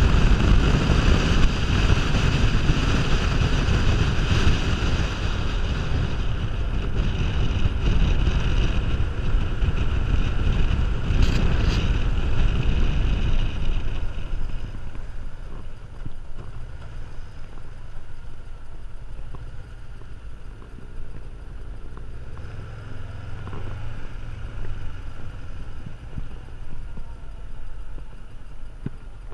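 Wind rushing over the microphone at riding speed, with a Kawasaki Ninja 500R's parallel-twin engine running under it. About halfway through the rush drops away as the bike slows, leaving the engine running at low speed.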